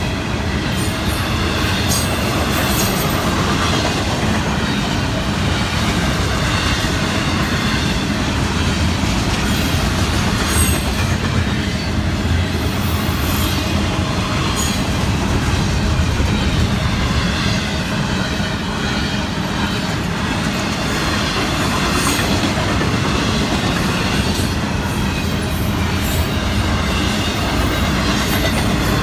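Double-stack intermodal freight train cars rolling past at speed: a steady rumble and rattle of wheels on rail, with occasional sharp clicks.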